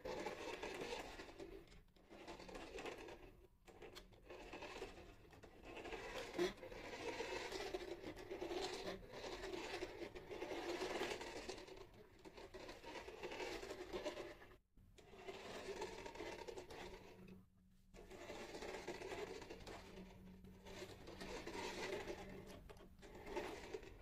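Small electric drive motor and gears of a remote-control toy bus whirring in spells of a few seconds, with short pauses between, as it drives back and forth.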